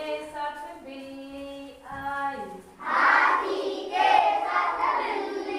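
Children's voices holding long sung notes at a steady pitch, the last one sliding down, then louder, rougher vocal calls starting about three seconds in.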